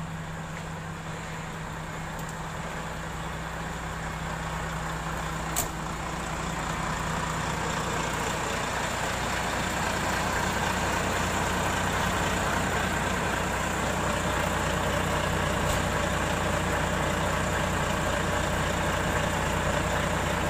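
Diesel engine of a container-truck prime mover idling steadily, growing louder over the first ten seconds or so and then holding level. One short sharp click about five and a half seconds in.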